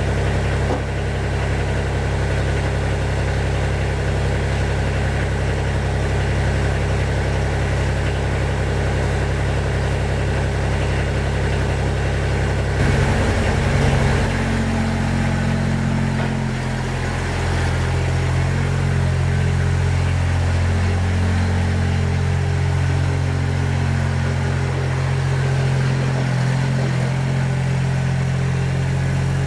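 Kubota BX23D compact tractor's three-cylinder diesel engine running steadily. Its note shifts about halfway through and then runs on steady.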